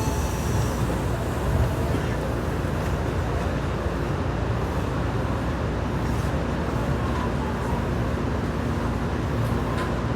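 Steady rumble and hiss of an Odakyu train, with a faint low hum joining about seven seconds in.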